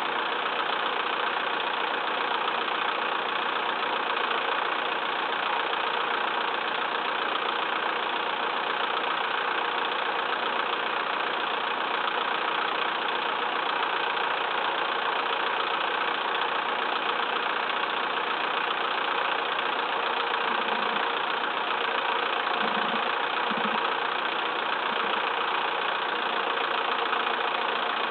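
Massey Ferguson 2635 tractor's diesel engine running steadily with no change in speed.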